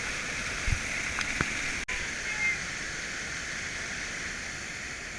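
Steady rush of water pouring over a dam spillway, with a couple of brief knocks in the first second and a half.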